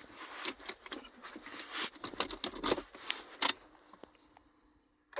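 Keys clicking and rattling as they are handled, a run of light sharp clicks that dies away near the end.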